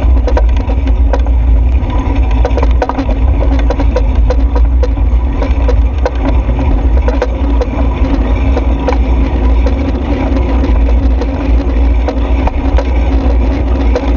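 Steady low rumble of wind and road noise on a camera riding on a moving bicycle, with frequent small rattles and clicks from the mount and frame over the lane surface.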